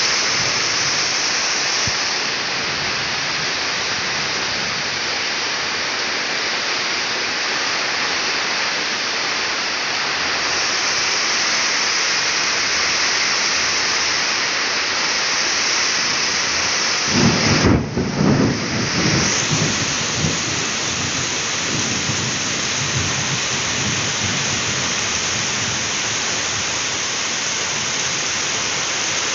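Heavy rain falling steadily, with a thunderclap past the middle that rumbles on for a few seconds.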